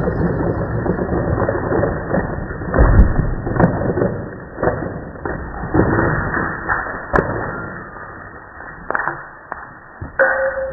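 Slowed-down sound of a heavy stone block dropping onto broken concrete: a deep, drawn-out crash with several dull thuds, the loudest about three seconds in.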